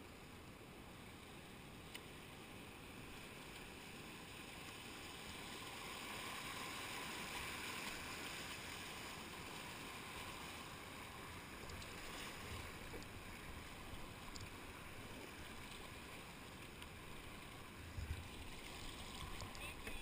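River water rushing over rocks and riffles around a kayak, swelling louder a few seconds in as the boat runs the faster water. There is a short low thump near the end.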